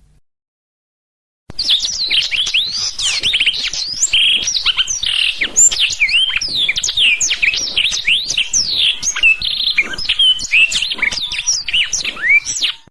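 Blackthroat (black-throated canary) singing a long, fast, varied song of high whistles, trills and chirps. It starts about a second and a half in and cuts off suddenly near the end.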